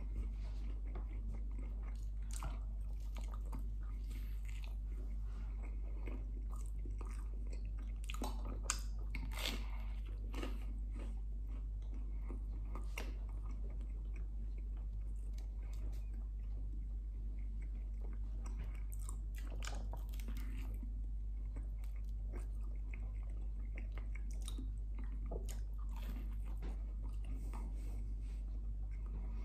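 A person chewing and biting into bread with beans close to the microphone, with irregular wet smacks and soft crunches, over a steady low hum.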